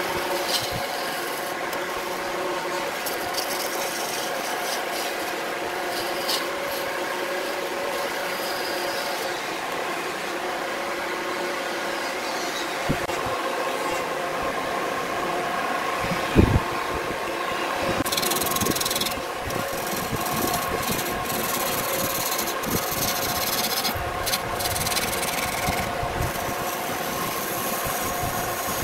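Wood lathe running with a steady motor hum while a gouge cuts the spinning wood, a continuous rasping scrape. A single loud knock sounds a little past the middle.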